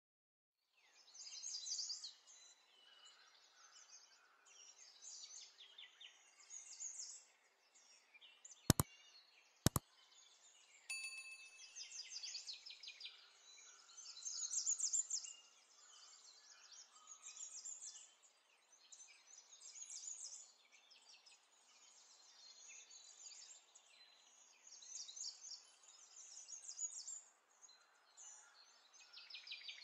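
Small birds chirping, fairly faint, with two sharp clicks a second apart about nine seconds in and a short ding just after.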